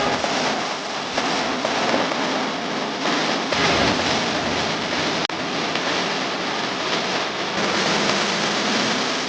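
Food frying on a street-food stall, a dense steady sizzle.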